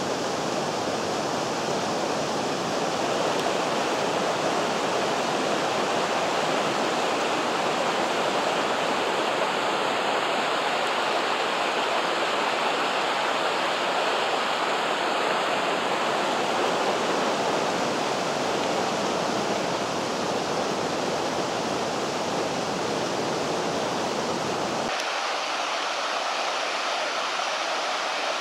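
Vydra mountain river rushing steadily. Near the end the deep rumble drops out suddenly, leaving a thinner, higher rush of water.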